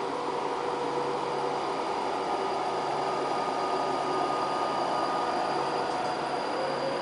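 Class 390 Pendolino electric train pulling slowly away: a steady rush of cooling fans with a thin electric whine from its traction equipment, a faint tone starting to rise near the end.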